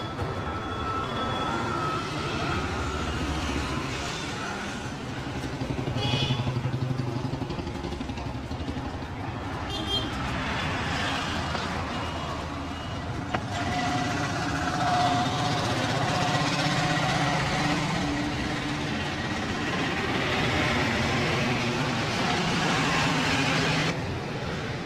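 Street traffic: engines of passing vehicles running under a steady haze of road noise, with a few held tones along the way.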